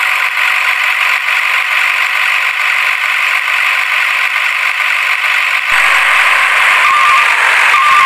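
Toy dump truck's small gear motor and plastic wheels rattling steadily over rough ground. About six seconds in the sound abruptly becomes fuller, and a short beep starts repeating about once a second.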